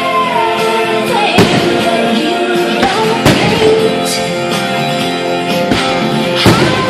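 Show music with singing playing over a fireworks display, with several sharp fireworks bangs cutting through it. The loudest bangs come about a second and a half in, about three seconds in and near the end.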